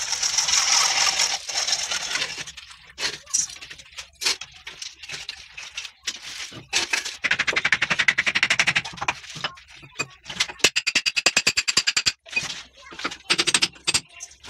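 Hand tools working at plastic pipe fittings: sharp knocks and two runs of fast, rattling scraping strokes, with a short hiss at the start.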